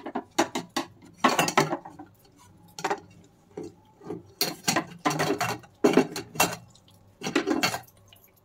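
Hands wringing water out of fresh chhena bundled in a muslin cloth over a stainless steel mesh strainer: a string of short, irregular wet squeezes with knocks and clinks against the steel.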